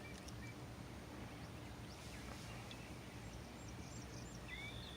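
Quiet outdoor background hiss with faint, distant birds chirping: a few short high chirps midway and a couple more near the end.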